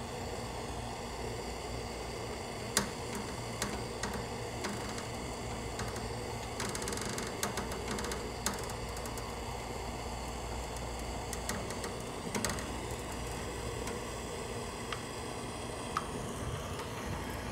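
Oxyacetylene torch burning with a steady hiss, set to a slightly carburizing, feathered flame while it heats an aluminum coil tube for brazing. Scattered light clicks come every few seconds.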